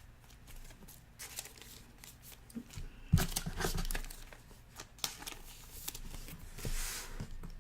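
Trading cards being handled and slid into plastic sleeves: scattered light rustles and small clicks, with a louder spell about three seconds in.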